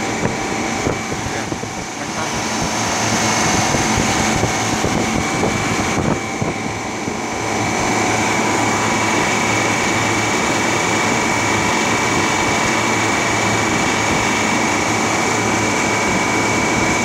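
Refrigeration condensing unit with a Bitzer compressor running steadily while being charged with R22: a continuous mechanical hum with a faint steady high whine.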